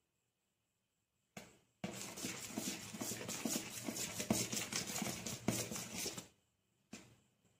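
A metal spoon stirring dry flour in a plastic mixing bowl, scraping and tapping against the bowl in quick repeated strokes, starting about two seconds in and stopping about six seconds in.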